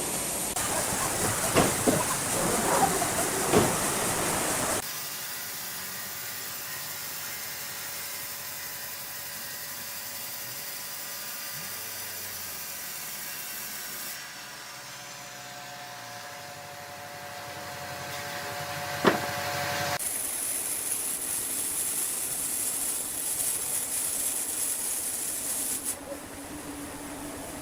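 Steady hiss and hum of sawmill machinery, with a run of knocks in the first five seconds and a single sharp knock later; the sound changes abruptly several times.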